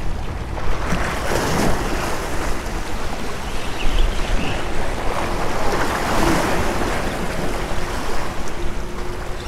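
Small waves washing and splashing against the rocks of a rock groin, swelling about a second and a half in and again around six seconds.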